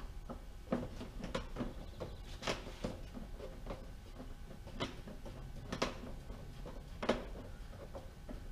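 Irregular light clicks and knocks from handling an outboard motor's engine cowl as it is fitted back on and secured.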